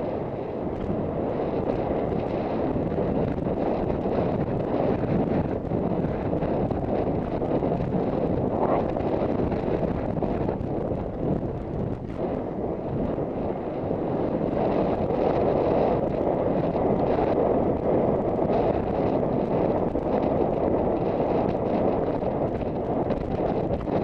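Steady wind noise rushing over a rider-worn camera's microphone as the horse travels across country.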